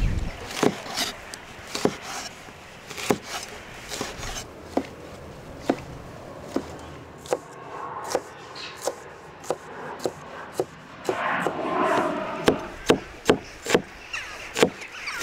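A knife chopping on a wooden cutting board: sharp knocks about one a second, coming faster after about seven seconds. Around eleven seconds in there is a short stretch of scraping.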